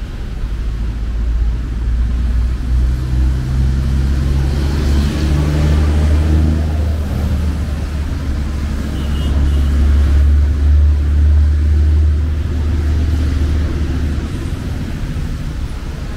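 A motor vehicle's engine running close by, a low drone that builds over the first few seconds and drops away about fourteen seconds in.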